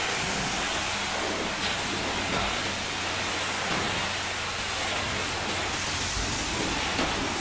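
Pressure-washer lance spraying a high-pressure water jet onto a truck's metal-framed wooden deck panels: a steady hiss of spray with water splashing and running off. A low, steady hum sits underneath.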